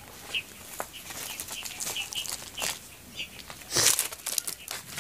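Small birds chirping now and then, over footsteps and rustling on dry straw and rubble, with a louder brief rustle about four seconds in.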